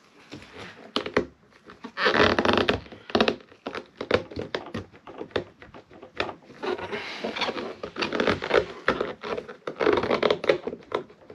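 Plastic quick-release fuel line connector on a fuel pump assembly being pushed and worked by gloved hands: a string of small clicks and knocks, with bursts of scraping and rustling about two seconds in and again from about seven to eight and a half seconds.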